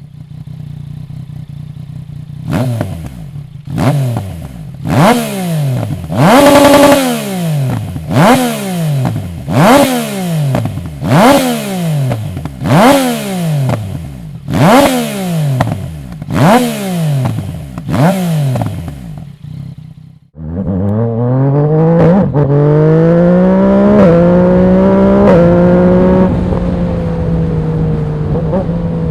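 Yamaha MT-09's 847 cc inline three-cylinder through a Dominator HP1 full exhaust, revved repeatedly at a standstill: about a dozen sharp blips over a steady idle. About two-thirds of the way through it breaks off, and the engine pulls hard under way, the note climbing and then holding with a few short cracks.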